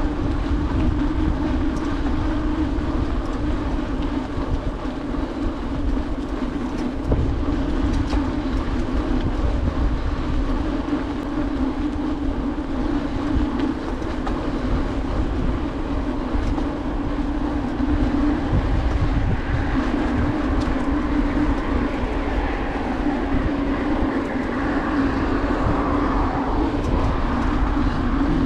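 Bicycle rolling along a paved path: the steady rumble and hum of the tyres, with wind rushing over the microphone.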